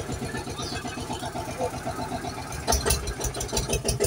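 Tractor engine sound running with an even chug of about seven beats a second, louder and with a rapid ticking clatter from near three seconds in.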